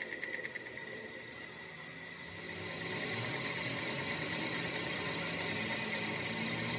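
Metal lathe running, its tool cutting the end of a spinning truck driveshaft piece, with a steady high whine over a hiss. The sound dips briefly about two seconds in, then comes back steady.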